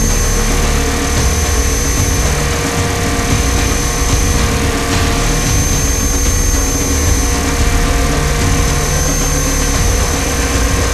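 Scale RC UH-60 Black Hawk helicopter in flight, heard from inside its fuselage: a steady drivetrain whine with several constant tones, one of them high-pitched, over rotor and airflow rumble.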